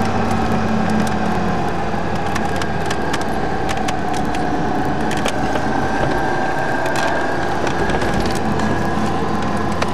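Car running on the road, heard from inside the cabin: a steady low hum of engine and tyres, with many short sharp clicks and crackles scattered throughout.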